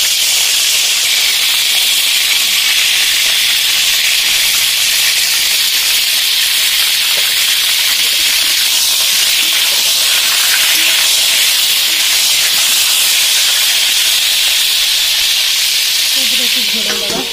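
Slit whole brinjals frying in hot oil in an iron kadai: a loud, steady sizzle that softens slightly at the very end.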